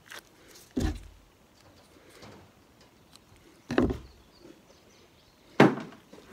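Three sharp knocks, about a second in, at about four seconds and near the end, the last the loudest: a plucked chicken carcass being turned and set down on a plastic cutting board while its feet and leg tendons are cut off.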